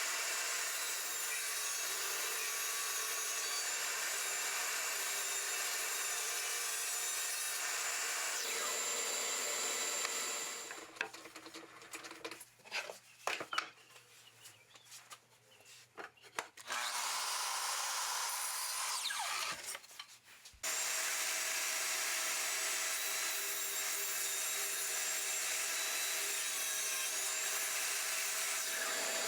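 Power saw cutting wood in three runs: a steady cut of about ten seconds, a brief one, and a long one near the end. Between the first two runs come a few seconds of small knocks and handling of wood.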